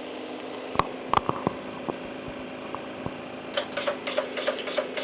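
Stago STA Compact coagulation analyzer running with a steady hum and a few scattered clicks. From about three and a half seconds in comes a rapid, even run of pulses, about five a second, as its Valco pump pushes cleaning solution through needle 2 in a 20-pulse check for a clogged needle.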